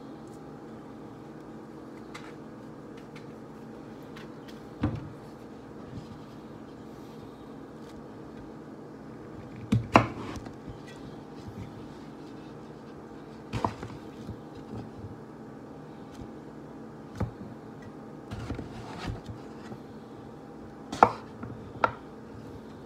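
Kitchen knife cutting through peeled breadfruit and knocking on a wooden cutting board: several separate knocks several seconds apart, the loudest about ten seconds in and about twenty-one seconds in, over a steady low hum.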